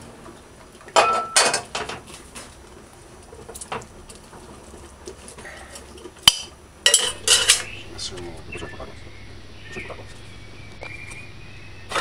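Dishes and cutlery clattering: a ceramic plate being handled, and a metal utensil clinking and scraping on a plate. There is a burst of sharp clinks about a second in and another cluster around seven seconds.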